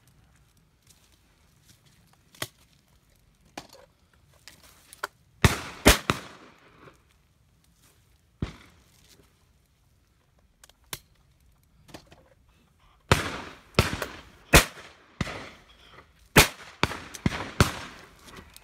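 Shotguns fired at driven partridges: scattered reports, some faint and distant, a loud pair about six seconds in, then a rapid run of loud shots over the last five seconds.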